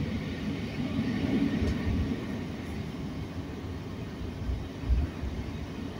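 Regional passenger train running, heard from on board: a steady low rumble with a couple of low thumps about four and a half and five seconds in.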